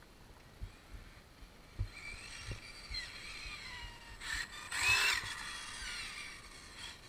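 Arrma Limitless 1/7-scale electric RC car's motor and drivetrain whining, the pitch rising and falling as the throttle changes. It is loudest about five seconds in, with a rising whine over a rush of tyre and gear noise.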